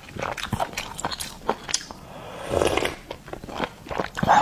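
Close-up eating sounds of seafood being bitten and chewed: wet clicks and crunches, with a longer, louder noisy stretch about two and a half seconds in.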